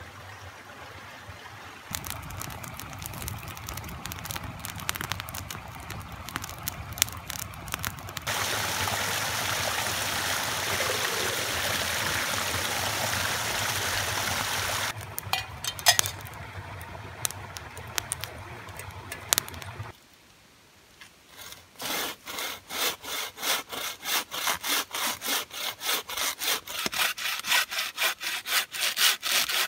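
A small waterfall splashing steadily over mossy logs for several seconds, then, after a brief gap, a hand saw cutting through a dead conifer log in quick, even strokes, about two a second.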